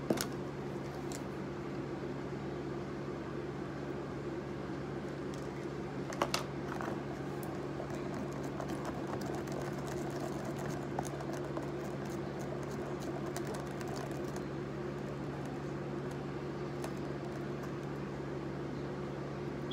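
Steady low room hum, with scattered light clicks and taps from a stick stirring slime in a plastic tub; one more distinct tap comes about six seconds in.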